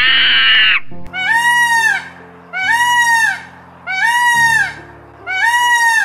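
An Indian peafowl (peacock) calling four times, about every second and a half, each call an arching cry. In the first second, before the peacock, a short loud monkey call. Background music plays underneath.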